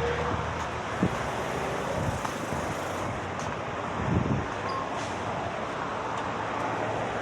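Steady road traffic noise, with a few low thumps about a second in and again after four seconds.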